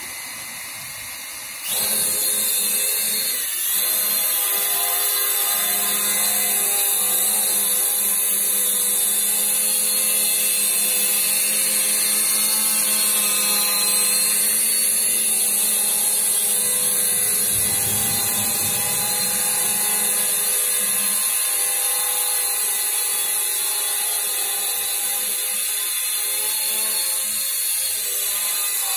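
Holy Stone HS120D quadcopter's guarded propellers whining steadily in a low hover, with several pitches that waver as the drone drifts in ATTI mode. The whine comes on loud about two seconds in as the motors start up.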